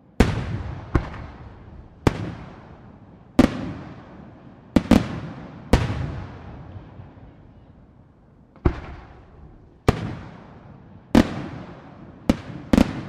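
Aerial firework shells bursting overhead: about a dozen sharp bangs at irregular intervals, some in quick pairs, each trailing off in a long rolling echo. There is a pause of about three seconds around the middle.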